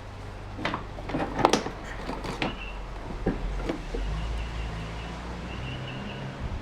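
Sharp knocks and clicks of parts being handled on a workbench, clustered in the first two and a half seconds, over a steady low hum.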